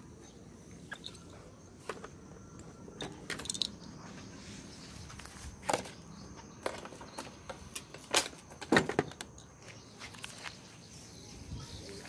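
Footsteps on a dirt path: irregular scuffs and crunches, with a few louder steps about two thirds of the way in.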